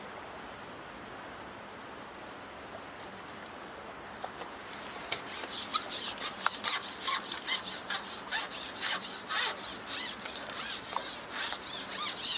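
A hooked mirror carp thrashing at the water's surface: a rapid, irregular run of splashes that starts about four seconds in.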